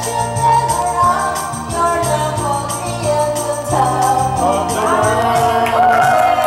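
Women singing together into karaoke microphones over a karaoke backing track with a steady beat; the singing grows louder near the end.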